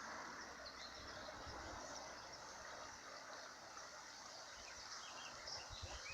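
Birds chirping faintly in short scattered calls over a low steady hiss, with a few soft low bumps near the end.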